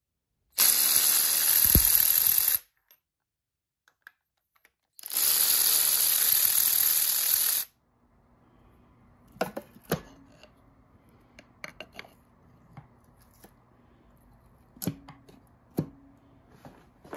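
A power tool runs in two bursts of about two seconds each, with a short pause between them. After that come scattered light metal clicks and knocks of tools and parts against a faint hum.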